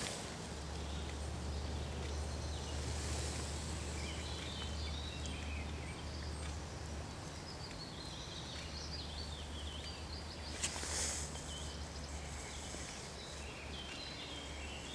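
Outdoor ambience: distant birds singing in short, hopping high notes over a steady low rumble, with a brief rushing sound about eleven seconds in.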